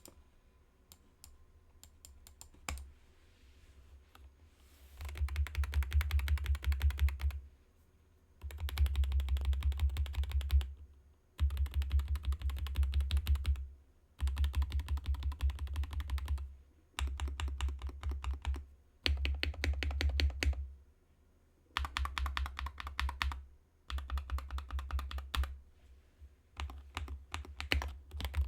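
Skyloong GK68 HE Hall-effect keyboard being typed on. A few scattered keystrokes come first, then fast typing in bursts of two to three seconds with short pauses between them.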